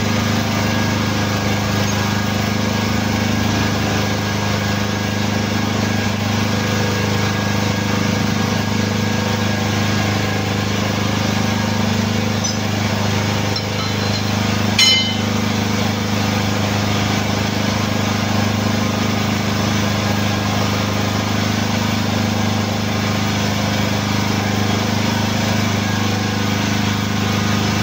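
Hydraulic forklift tyre press's power unit running with a steady hum. About 15 s in, a single sharp metallic clink as the steel lock ring is worked onto the rim.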